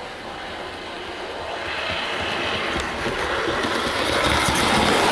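Motor and wheels of an OO gauge North British D6xx Warship model diesel locomotive running along the track, growing steadily louder as it approaches. It runs smoothly, with no grinding or stuttering.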